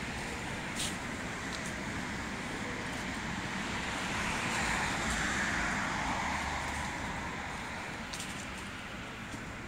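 Street traffic noise, with a vehicle passing that swells and fades between about four and seven seconds in, and a brief sharp click about a second in.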